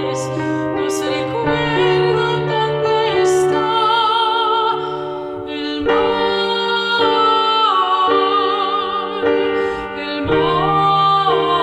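A soprano singing in operatic style, holding long notes with vibrato over a sustained instrumental accompaniment.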